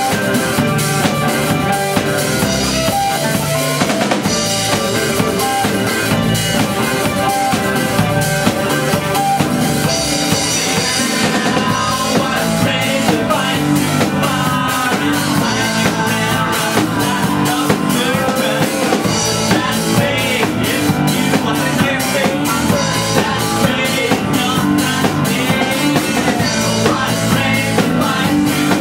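Live rock band playing at full volume: drum kit with bass drum and snare, and electric guitar. A man's singing voice comes in about halfway through.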